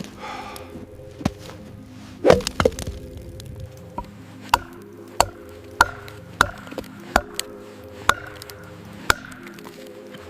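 Repeated sharp chopping strikes, a few irregular ones and then a fairly even series of single blows about every half second to second, over soft background music.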